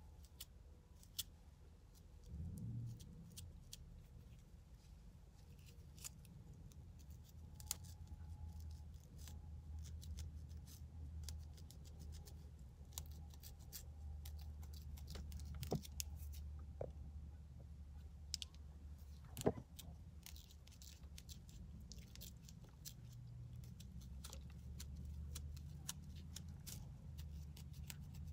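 Faint, irregular scratching and ticking of a small plastic edge brush and its fine comb teeth scraped along the scalp and through the hair, loosening dandruff flakes. Under it runs a low steady hum inside the car.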